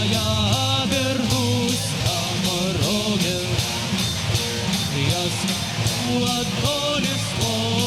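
Rock band playing an instrumental passage: a steady drum beat with bass under a lead melody that bends up and down in pitch.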